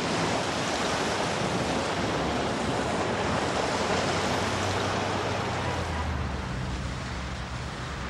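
Sea surf washing on a shore: a steady rushing noise that starts suddenly and eases off after about five seconds, when a low steady hum comes in underneath.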